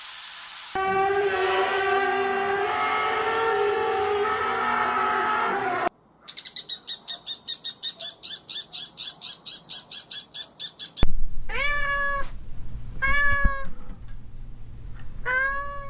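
A cat meowing three times in the second half. Before that comes a rapid, even, high chirping about four times a second, and at the start a jumble of overlapping animal calls.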